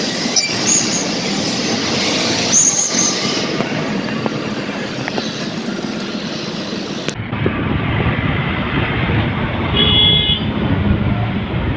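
Road traffic with vehicle engines running, and a few short horn toots. About seven seconds in it switches abruptly to a heavier, deeper traffic rumble.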